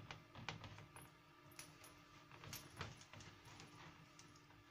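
Faint, irregular light taps and clinks as fingertips press the rim of pizza dough into a nonstick pizza pan while the pan is turned.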